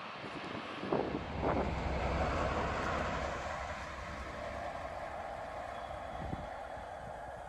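DB class 218 diesel-hydraulic locomotive passing slowly with its diesel engine rumbling, loudest in the first few seconds and fading as it moves on. There are two short knocks about a second in.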